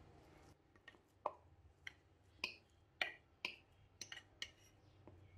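A wooden spatula tapping and scraping against a dish as boiled mashed potato is pushed off it into a glass bowl: about ten light, sharp taps, spread unevenly from about a second in until near the end.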